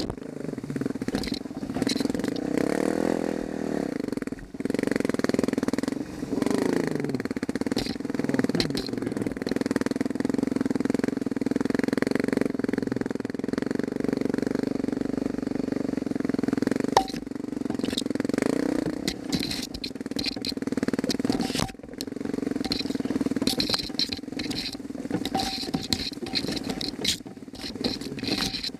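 Dirt bike engine running, its revs rising and falling again and again as the throttle is worked, with rattling and clatter from the bike over the rough trail.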